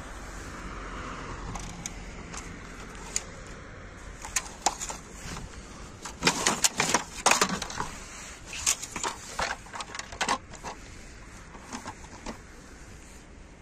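Scattered hard-plastic clicks and knocks of rummaging through dumpster junk: toy cars being picked up and turned over. The knocks come thickest and loudest about six to seven and a half seconds in, over a steady low background hum.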